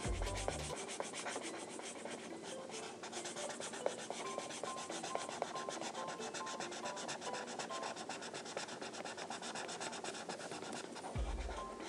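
Felt-tip marker rubbing on paper in quick, continuous back-and-forth colouring strokes.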